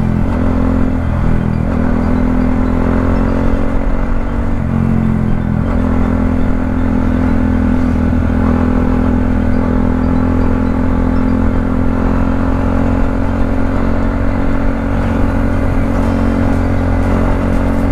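Motorcycle engine running at cruising speed, heard from the rider's seat, under a steady low rumble. The engine note shifts a couple of times in the first six seconds, then holds steady.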